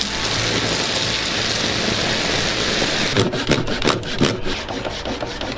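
Water jet hissing steadily as it sprays onto a fresh aluminum-bronze casting. About three seconds in it gives way to quick, regular rasping strokes of a Japanese pull saw cutting a wooden pattern piece.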